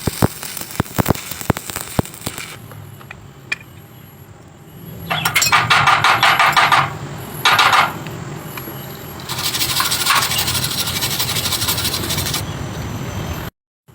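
Electric arc welding crackling and sputtering for the first two seconds or so. Then come louder, harsher metalworking noises: two short bursts, then a longer steady stretch, with a brief drop-out near the end.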